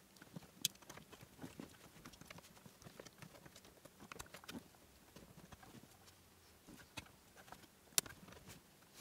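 Faint handling of the car's wiring under the dashboard: scattered light clicks and rustles of wires and plastic connectors, with one sharper click near the start and another near the end.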